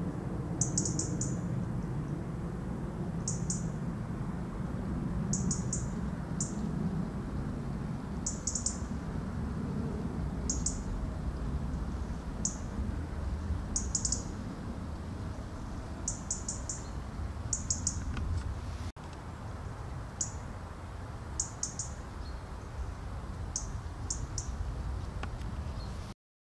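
European robin giving alarm calls: short, very high ticking calls, singly or in quick runs of two to four, repeated every second or two, over a steady low background rumble.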